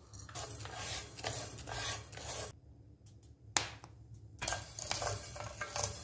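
Wooden spatula stirring wheat grains as they dry-roast in a pan: two stretches of dry rustling and scraping, with a sharp click between them.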